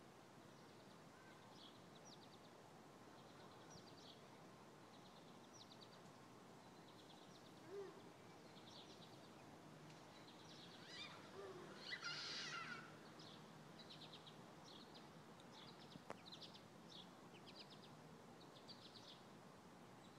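Faint outdoor birdsong: short high chirps repeating every second or so, with one louder song phrase about twelve seconds in, over a low background hiss.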